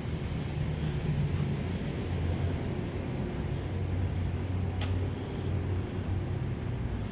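Street traffic: a motor vehicle's engine running with a steady low rumble, and one short sharp click about five seconds in.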